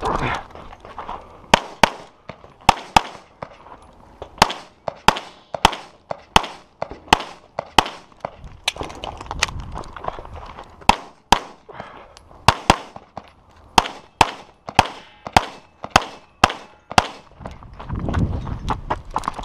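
Rapid pistol fire from an STI Open-division competition pistol: about thirty shots, mostly in quick pairs about a third of a second apart, with short pauses between strings as the shooter moves between targets.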